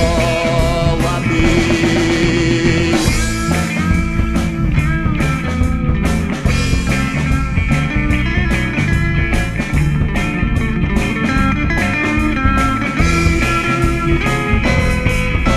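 Rock band playing an instrumental passage with no singing: electric guitars, bass guitar and drums.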